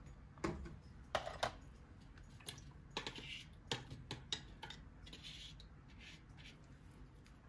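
Faint, irregular clicks and taps of a brush knocking against a small container as napkin glue is thinned with water.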